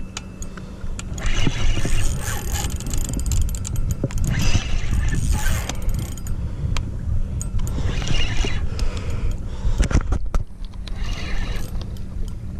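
Spinning reel being cranked in repeated bursts, its gears whirring and rasping as it reels against a heavy hooked fish, over a low rumble of wind on the microphone.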